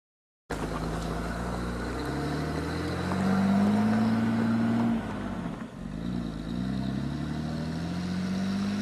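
A Land Rover Discovery's 4.2 V8 with a straight exhaust running under load, starting abruptly about half a second in. The revs climb and it is loudest around the middle, drop off suddenly, then build again near the end.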